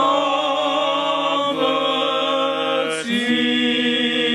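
Orthodox church singers chanting unaccompanied in several voices, slow held notes that step to a new pitch about every second and a half: the sung response after the Gospel reading.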